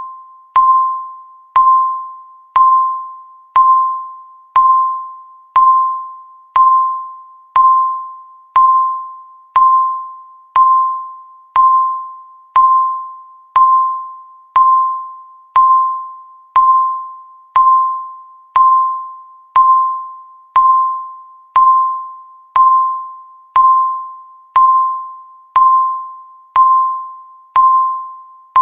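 Countdown timer beep sounding once a second: a single mid-pitched electronic tone, each struck sharply and fading away before the next, marking off the seconds.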